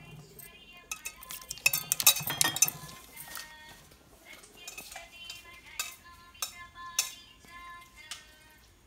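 Stainless steel kitchen bowls and utensils clinking and knocking, each strike leaving a short metallic ring. The strikes are thickest about two seconds in and come again, more spaced out, in the second half.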